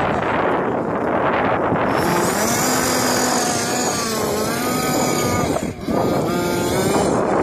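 FG Sportsline large-scale RC car's small petrol two-stroke engine running as the car is driven, its pitch rising and falling with the throttle. The revs drop briefly about two-thirds of the way through, then pick up again.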